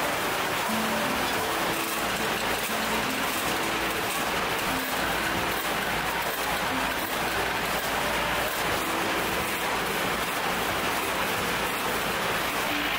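Steady hiss of running ice-cream production-line machinery, even and unbroken, with short faint tones underneath.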